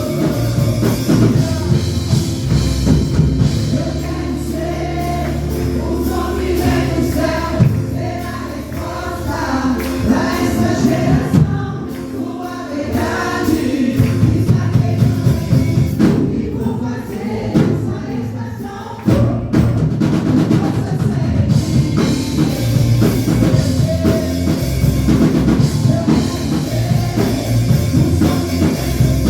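Gospel worship song with sung vocals and a drum kit played along as a drum cover. The band drops to a softer passage near the middle, then the full drums and band come back in sharply about two-thirds of the way through.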